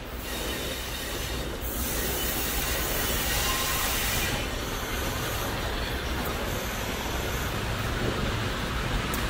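Fiat ALn 668 diesel railcar approaching, its engine rumble growing louder over the first two seconds and then holding steady. A high-pitched squeal from the wheels on the curving track rides over it for the first four seconds.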